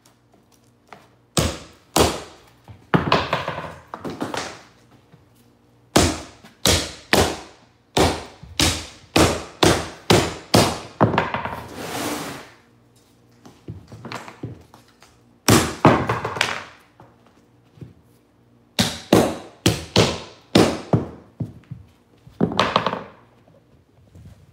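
Claw hammer driving the nails of wooden carpet tack strip into a wood subfloor: sharp blows in quick runs of several strikes with short pauses between runs.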